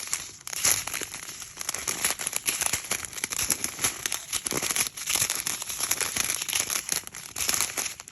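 Small plastic bags of diamond-painting drills crinkling and rustling as they are handled and sorted, with many quick crackles.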